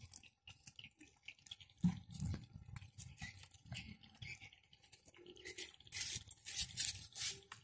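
Several puppies eating a soft rice mash from a plastic tub: irregular wet chewing, smacking and lapping, busiest about six seconds in.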